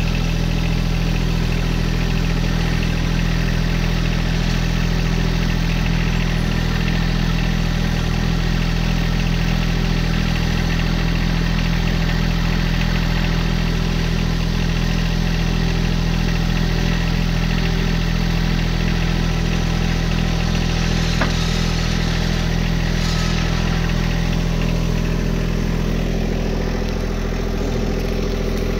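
John Deere 1025R sub-compact tractor's three-cylinder diesel engine running at a steady idle.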